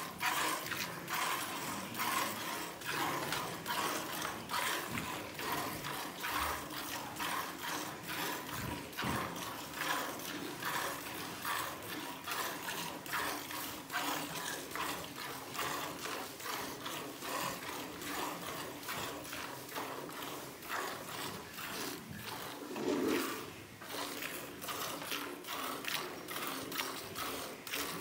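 Milk squirting from a cow's teats into a steel pail already holding milk, as it is milked by hand: a quick, steady rhythm of frothy squirts from alternating hands. A brief low sound breaks in near the end.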